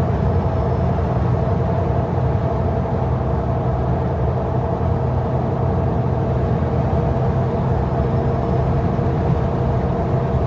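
A car driving at a steady speed on a highway, heard from inside the cabin: a constant, even drone of engine and road noise.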